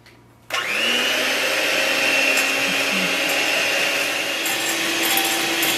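Electric hand mixer switched on about half a second in, its motor spinning up and then running at a steady whine as the beaters whip coffee powder, sugar and hot water into dalgona foam.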